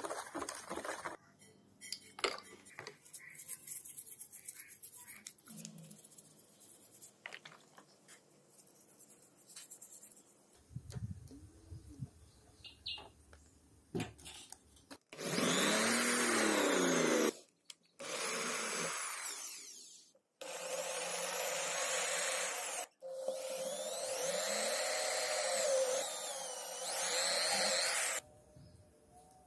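Scattered handling clicks and taps, then a small electric power tool running in four bursts of a few seconds each, its pitch sagging and rising as it is pressed onto the work.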